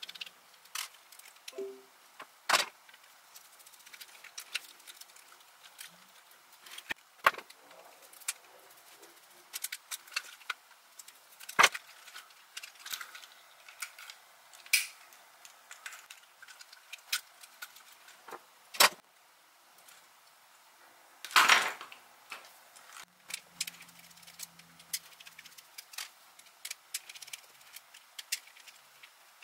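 Hard plastic parts of a Furby's gear-and-linkage mechanism clicking, knocking and rattling as it is pried apart and handled with a screwdriver. The clicks are scattered and irregular, with a handful of louder snaps and knocks among them.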